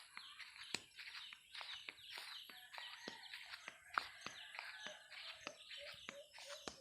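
Many small birds chirping and calling at dusk in quick, overlapping short notes, faint. A steady low note joins about five and a half seconds in.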